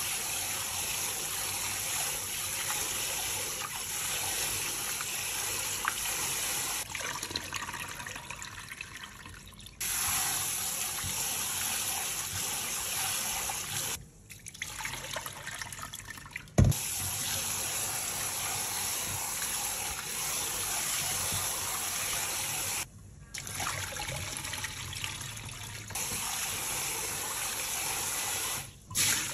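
Water running steadily from a tap, in several stretches that break off suddenly, with a single sharp click about two-thirds of the way through.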